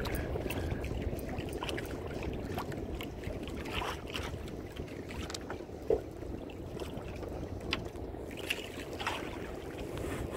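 Steady wind and water noise around a small boat at sea, with scattered faint clicks and knocks.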